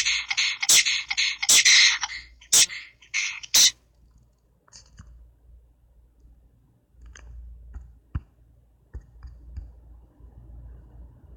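Google Translate's Arabic text-to-speech voice reading the nonsense word "abosch", which comes out as a run of hissing, sneeze-like bursts punctuated by sharp clicks, like beatboxing; it stops abruptly after about three and a half seconds. A few faint clicks follow.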